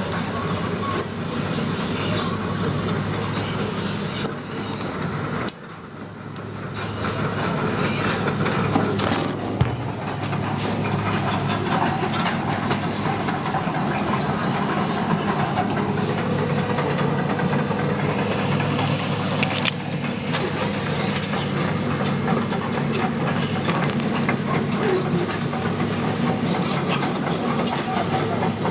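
Hydraulic excavator's diesel engine running steadily, with a brief drop in level about five and a half seconds in and a faint high tone coming and going.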